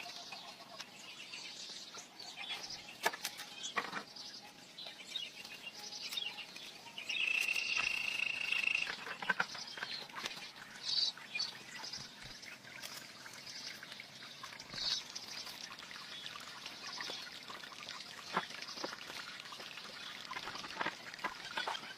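Birds chirping, with one held high trill about seven seconds in and scattered sharp clicks and knocks.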